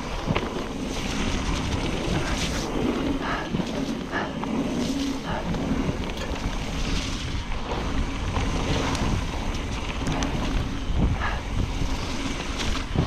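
Wind rushing over an action camera's microphone as a Trek Fuel EX 9.8 full-suspension mountain bike descends a wet dirt trail. The tyres rumble over the ground, with frequent short knocks and rattles as the bike hits bumps.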